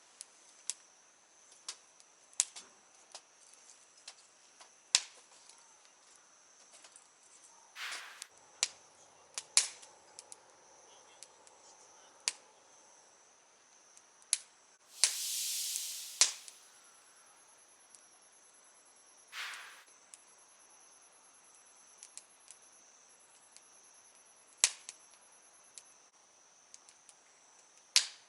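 Wood campfire crackling, with sharp irregular pops and a louder hissing flare about halfway through. A steady high insect trill runs underneath.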